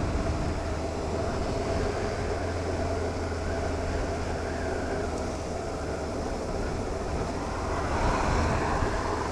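Motorcycle engine running steadily at a slow, easy pace, heard from the rider's seat along with road and wind noise. About eight seconds in, a car overtakes close alongside, adding a brief swell of its own engine and tyre noise.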